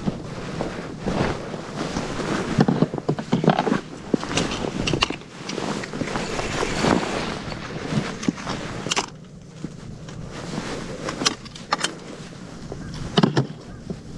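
Wind buffeting the microphone in uneven gusts, with rustling and irregular knocks of handling noise.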